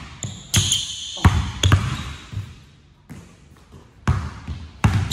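A basketball dribbled on a hardwood gym floor: about six irregular bounces, each ringing in the large hall, with a pause in the middle. Short high sneaker squeaks on the court come about a second in, during the spin move.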